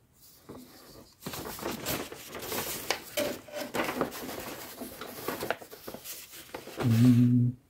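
Large paper instruction sheets being opened out and handled, giving a few seconds of irregular rustling and crinkling. Near the end a man makes a brief voiced murmur.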